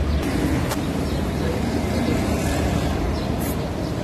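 Steady low rumble of road traffic, with a faint click about three-quarters of a second in.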